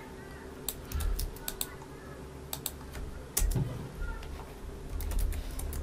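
Computer keyboard keystrokes and clicks, irregular and scattered, with a few low thumps between them.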